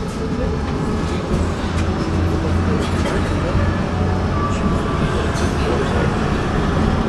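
Tram running along street track, heard from inside the car: a steady low rumble of wheels on the rails, with scattered light clicks.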